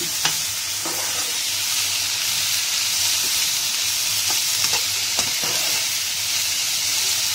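Chopped vegetables sizzling steadily as they are stir-fried in a nonstick wok, with a metal spoon clicking and scraping against the pan several times as it tosses them.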